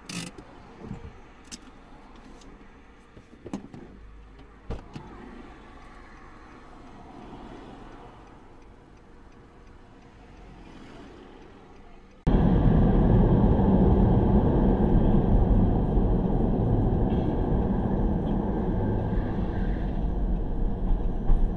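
A quiet car cabin with a few short, sharp clicks. About twelve seconds in, a cut brings a loud, steady rushing noise from inside a car wash bay.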